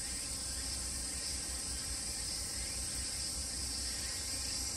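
Steady, high-pitched chorus of insects, running without breaks, over a faint low rumble.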